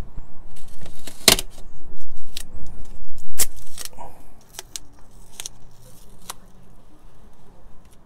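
Duct tape being torn into strips and pressed down: a run of sharp, irregular rips and crackles, loudest in the first half, with the biggest rip about a second in.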